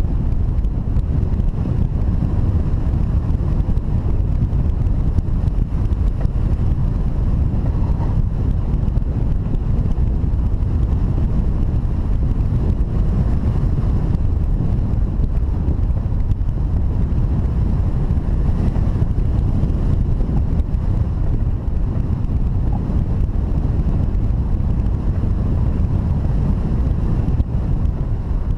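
Steady wind noise on the microphone: a constant low rush of airflow buffeting the camera during hang glider flight.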